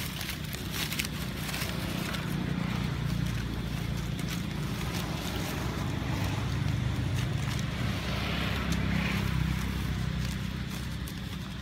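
A steady low rumble with scattered faint crackles.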